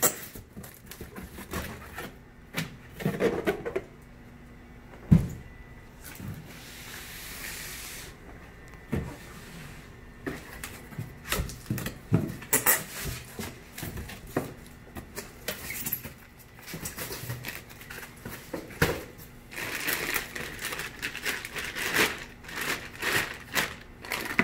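Cardboard shipping box being opened by hand: flaps and packing handled with scrapes and knocks, and one loud thump about five seconds in. Near the end, plastic fish bags crinkling and rustling inside a styrofoam liner.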